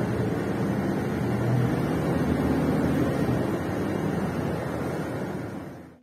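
A loud, steady rushing noise that cuts off abruptly at the end.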